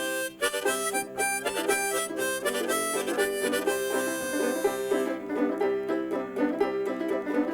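Instrumental intro of a bluegrass song: quick banjo picking under long held chords, over a steady low drone note.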